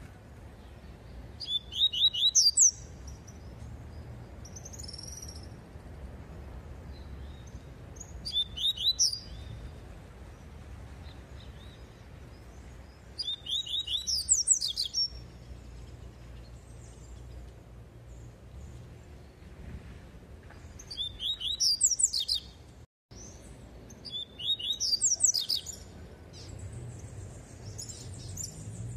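Caged double-collared seedeater (papa-capim coleiro) singing its 'tui-tui' song: five short phrases of rapid, repeated high chirping notes, each a second or two long with several seconds of pause between them.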